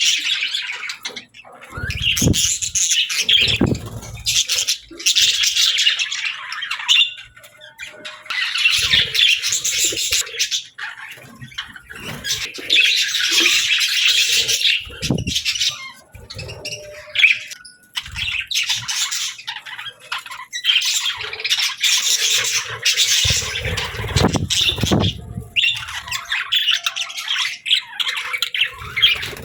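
Budgies chattering and chirping in busy bouts of a few seconds with brief pauses between, with a few low thumps mixed in.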